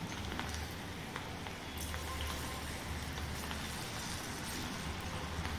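Cabbage manchurian batter balls deep-frying in hot oil in a steel kadhai: a steady sizzle with small crackles and pops, as freshly dropped batter bubbles in the oil.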